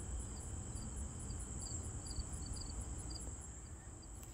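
Insects chirring: a steady high-pitched trill with a faster pulsing call above it, about three pulses a second, over a low rumble.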